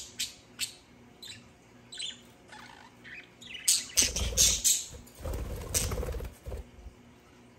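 Budgerigars chirping in short high calls, then a loud flurry of chirps and wing flaps about four seconds in as a budgie takes off from its perch.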